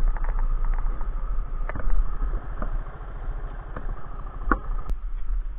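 Suzuki Djebel 200's single-cylinder four-stroke engine idling with a rapid low pulsing. A few sharp mechanical clicks sound over it, and it gets quieter after about halfway.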